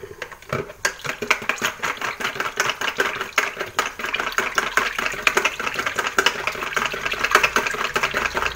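Stick blender running in raw soap batter in a plastic pitcher, its head clicking and rattling rapidly against the plastic, starting about a second in. It is blending the oils and lye solution to bring the soap to trace.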